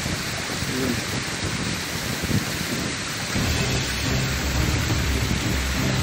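Rushing water of a rocky mountain stream near a waterfall: a steady hiss, with a deeper rumble coming in about three seconds in.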